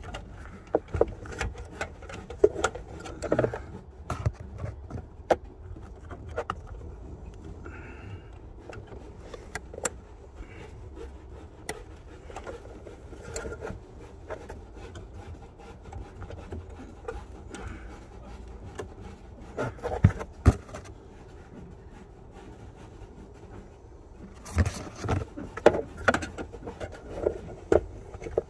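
Irregular small clicks, taps and scrapes of a small screwdriver and pliers working at the plastic clip of a car radio's quad-lock wiring connector in a cramped space behind the dash, the clip not yet letting go. Louder bunches of clicks come about twenty seconds in and again near the end.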